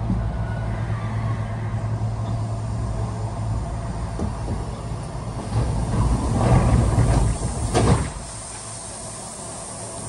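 Running noise of a Kintetsu Osaka Line express train heard from inside the passenger car: a steady low hum and rumble. It grows louder and rougher from about six seconds in, then drops suddenly to a quieter run just after eight seconds.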